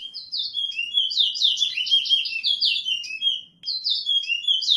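Towa-towa (chestnut-bellied seed finch) singing: a fast run of sweeping whistled notes lasting about three seconds, a brief pause, then the next phrase begins.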